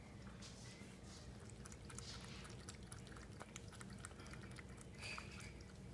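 Cat lapping water from a bowl: faint, quick wet ticks over a low steady hum.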